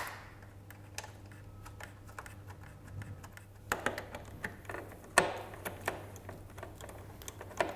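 Scattered small metallic clicks and taps of a socket wrench and bolt as the ignition coil's mounting bolt is threaded back in and tightened, with a sharp click at the start and short clusters of clicks later on.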